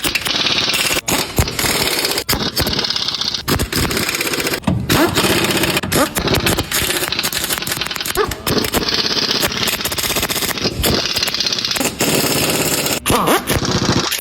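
Pneumatic impact wrench hammering in rapid repeated bursts, with short rising whines as it spins up, while fasteners are driven on a car's steering rack job.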